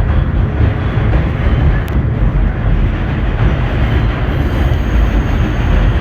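Vintage IRT Low-Voltage subway car running along the track, heard from inside the car: a steady, heavy rumble of wheels and running gear, with a brief click about two seconds in.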